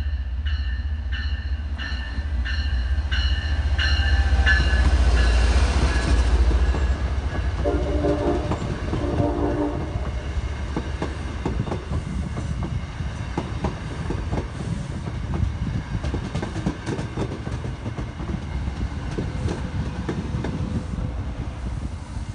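MBTA commuter train led by an HSP-46 diesel-electric locomotive. A bell rings at about two strokes a second as the engine's heavy rumble swells to its loudest about five seconds in. The horn sounds two blasts of about a second each, around eight and nine seconds in. Then the bilevel coaches rumble past with steady clicking of wheels over the rail joints.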